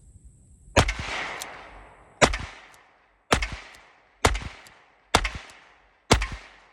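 Six shots from a Ruger Old Model Vaquero single-action revolver in .45 Colt, fired one at a time roughly a second apart, each followed by a short fading echo. The gun is being test-fired with freshly lightened springs, and all six rounds go off.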